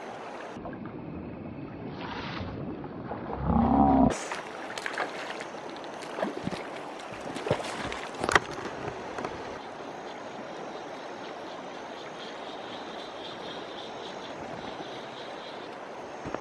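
Steady rush of running stream water. There is a short, loud, low sound about three and a half seconds in, then several sharp knocks over the next few seconds.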